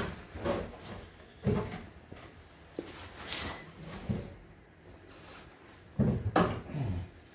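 Scattered knocks and clunks of tools and exhaust parts being handled during exhaust removal, with a short hiss about three seconds in.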